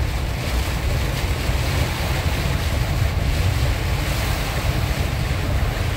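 Heavy storm rain and wind beating on a moving vehicle, heard from inside the cab as a steady loud hiss over a constant low rumble of road and wind noise.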